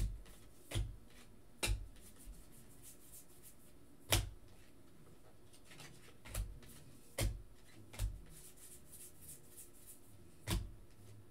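Baseball trading cards flipped through by hand one at a time, each card slid off the front of the stack with a short sharp snap of card stock. There are about eight snaps, irregularly spaced, with faint room noise between them.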